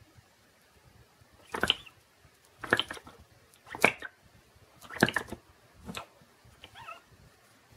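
Flame licker (vacuum) engine popping as it draws the burner flame into its cylinder, four sharp pops about a second apart, then a weaker one and fading traces. It turns over only a few strokes and does not keep running.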